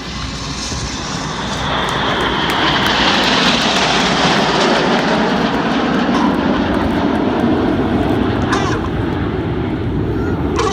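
Jet noise from the Red Arrows' BAE Hawk jets flying past in formation: a loud rush builds over the first couple of seconds, with a whine falling in pitch as they pass, then stays loud.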